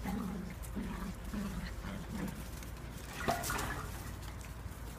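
Eight-week-old whippet puppies play-fighting: a run of short, low growls, about three a second, then a sharper, louder sound about three seconds in.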